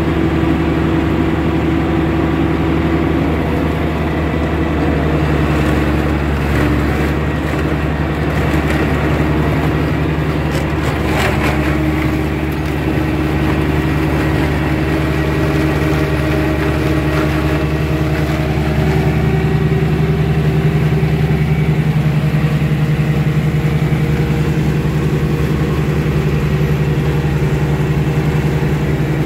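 Tractor engine running steadily while it drives a rear-mounted Kuhn flail mower cutting grass, with a few small shifts in engine pitch.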